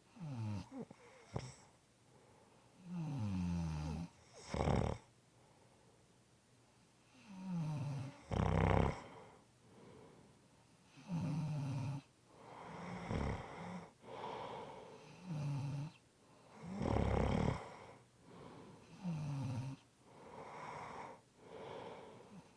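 A person snoring in sleep, one snore on nearly every breath, every two to four seconds. Several snores slide down in pitch, and a few end in a louder, rougher snort.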